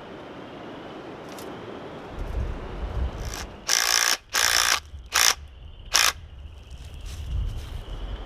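Cordless drill running a long bit into a wooden fence post in four short bursts, the first two longer, a little past the middle. Wind rumbles on the microphone underneath.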